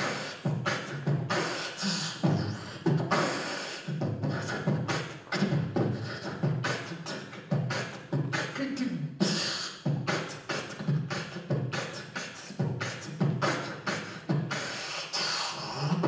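A person beatboxing into a microphone: a steady beat of deep vocal kick drums and sharp snare and hi-hat clicks.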